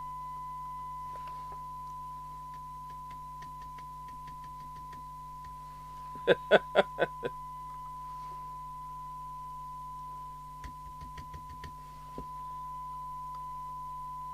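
Steady high test tone from the Harry Moss PT325 CB radio's speaker as it receives a tone-modulated S9 signal from a signal generator, with low hum under it. About six seconds in come about five quick sharp taps, the meter being tapped to free its sticking needle, and a few faint clicks follow a few seconds later.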